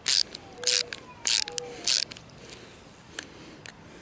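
Grey coupling collar of a garden hose mender being twisted tight by hand on its threads: four short scrapes about half a second apart, then a few faint ticks.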